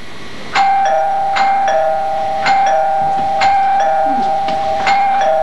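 Bell-like electronic chimes: a struck note roughly once a second, each ringing on, alternating between two pitches over a steady held tone.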